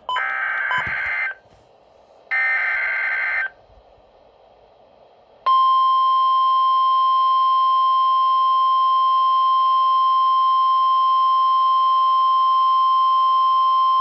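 Emergency Alert System / NOAA Weather Radio SAME header: two short bursts of warbling digital data, each about a second long. After a pause of about two seconds comes the steady single-tone 1050 Hz attention signal, which starts about five seconds in and holds, announcing a severe thunderstorm warning.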